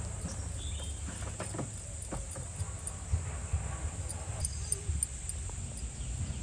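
Outdoor garden ambience: a steady high insect trill over a constant low rumble, with a few faint bird chirps and some soft taps as dough is handled.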